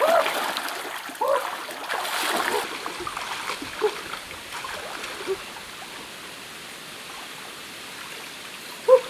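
Water splashing and sloshing as a person wades and crawls through a shallow rocky river pool, louder in the first few seconds. The splashing then settles into the steady trickle of the flowing stream.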